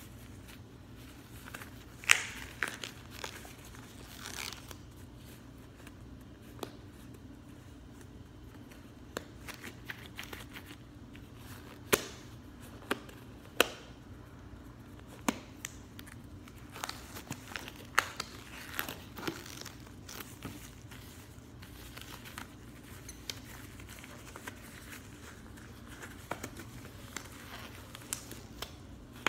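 Latex gloves being stretched, rubbed and pulled on by hand, crinkling with irregular sharp snaps, the loudest about two seconds in and again about twelve seconds in.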